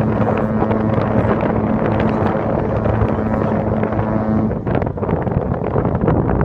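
A ship's horn sounding one long, low, steady blast that stops about four and a half seconds in, with wind rumbling on the microphone throughout.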